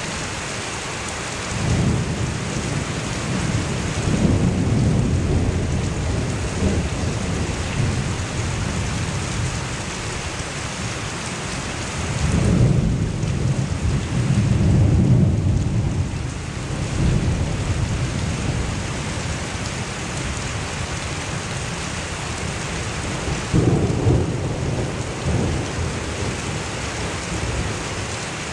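Heavy downpour of a sudden summer thunderstorm falling steadily, with thunder rumbling several times: about two seconds in, again a few seconds later, longest and loudest around the middle, and once more near the end.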